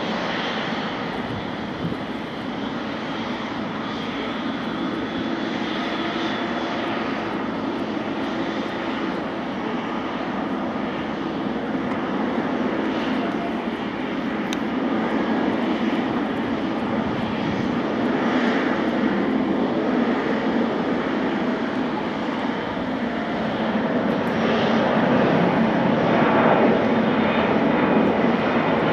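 Boeing 777-200LR's GE90 turbofan engines running at taxi power: a steady jet engine noise that grows louder over the last few seconds as the airliner taxis closer.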